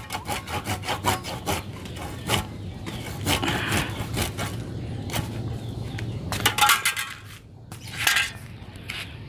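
Wood being worked by hand on a bonsai trunk: a quick run of cracks and snaps at the start, scraping and rubbing in the middle, and a few loud sharp snaps later.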